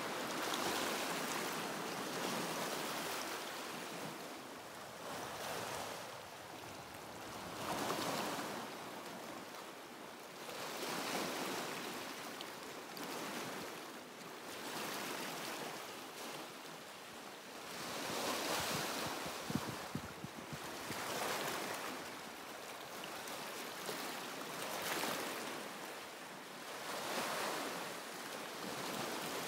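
Sea waves breaking and washing over shoreline rocks, the surf swelling and falling away every few seconds. A couple of brief knocks sound about two-thirds of the way in.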